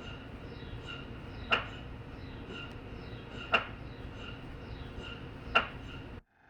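Philips 1.5 T MRI scanner running a scan sequence: three sharp knocks two seconds apart over a steady hum, with soft repeating chirps in between. It cuts off suddenly near the end.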